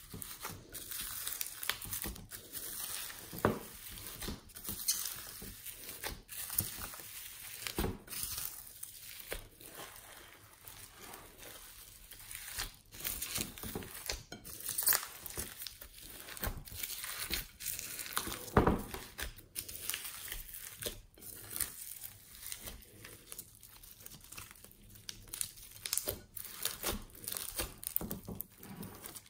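Glossy slime full of foam beads being kneaded and squeezed by hand: a dense, irregular crackling and crinkling, with a few louder snaps now and then.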